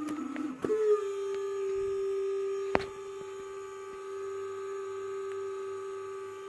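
Small high-speed cooling fan in an LED H4 headlight bulb making an abnormal whine on startup: a wavering tone that jumps up in pitch under a second in and then holds a steady whine. A single sharp click near the middle.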